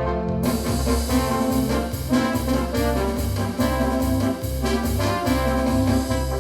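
Yamaha DX7 FM synthesizer playing a brassy chordal patch over a pulsing, stepping bass line; a bright, airy upper layer comes in about half a second in.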